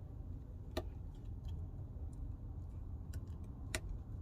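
Scattered small clicks and taps of parts being handled while the iPhone 12's front camera and Face ID flex are fitted into its housing, the sharpest about a second in and near the end, over a steady low hum.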